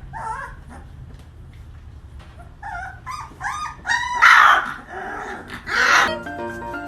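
Puppy whimpering and yipping: a quick run of short high yips, then two louder, rougher barks.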